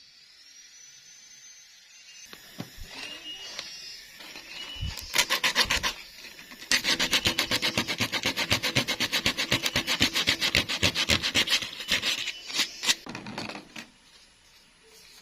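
Fast, even back-and-forth scraping strokes of a hand tool on a workpiece, about six strokes a second. They start about five seconds in, build briefly, run steadily and stop shortly before the end.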